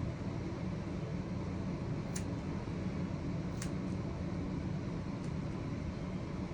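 Steady low background hum with three brief, crisp snips of scissors cutting a dog's fringe hair, spaced about a second and a half apart.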